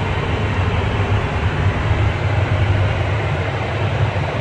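Steady airliner cabin noise heard inside an aircraft lavatory: a low hum with an even rushing sound above it, unbroken throughout.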